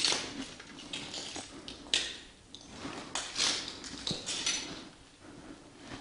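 Irregular scuffs and rustles of a person moving through a doorway on a gritty floor, with a sharp click about four seconds in.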